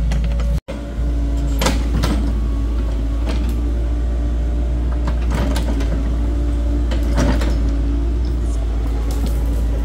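Small crawler excavator's diesel engine running steadily under digging load, with a few sharp knocks and scrapes as the bucket works the dirt bank. The sound drops out for an instant just under a second in.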